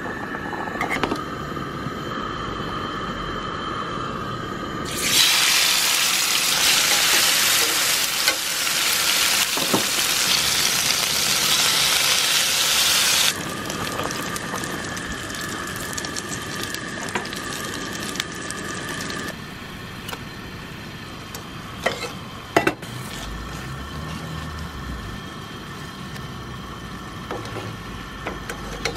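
Chicken steaks sizzling in a frying pan on a gas stove. The sizzle is loudest for about eight seconds starting some five seconds in, and there are a couple of sharp taps of utensils against the pan later on.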